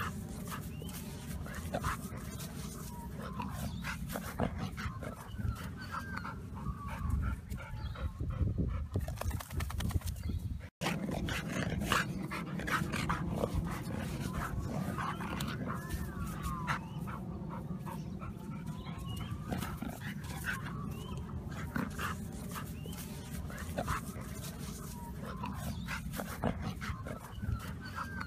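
A large long-haired dog rolling and wriggling on its back in bare soil and grass, its fur scraping and rustling against the ground. The dog gives drawn-out whines that rise and fall in pitch.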